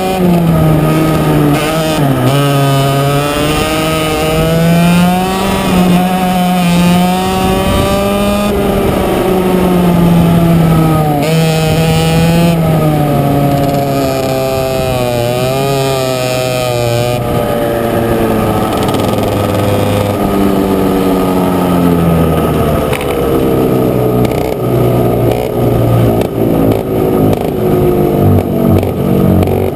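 100cc two-stroke racing kart engine heard from on board, revs rising and falling through a series of corners. Over the last ten seconds or so the pitch drops and the engine runs at low, uneven revs as the kart slows toward the paddock.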